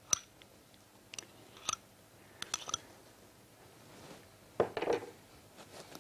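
A metal spoon clinking and scraping against glass bowls as frozen yogurt is spooned onto berries: a few light, ringing taps, then a busier cluster of clinks and squelchy mixing near the end.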